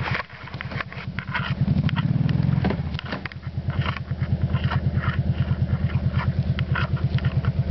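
Kawasaki Brute Force 750 ATV's V-twin engine running with an even pulsing beat, revving up about two seconds in and then settling back. Scattered sharp clicks and knocks sound over it.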